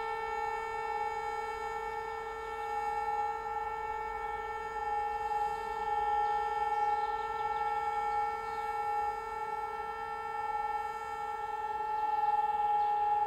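Hörmann HLS 273 pneumatic high-performance siren, driven by compressed air, sounding one steady unbroken tone with strong overtones: the all-clear signal. The siren has a technical fault that makes it sound weaker than it should.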